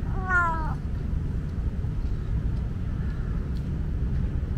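Tabby tomcat giving one short meow, about half a second long and falling slightly in pitch, just after the start, over a steady low background rumble.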